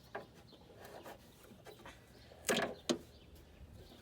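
A few faint clicks, then a brief scrape about two and a half seconds in and a sharp click just after: hand tools and the rubber fuel hose being worked.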